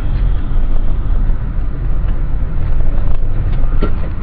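Car driving at highway speed, heard from inside the cabin by a dashcam: a steady low road and engine rumble, with a few faint clicks near the end.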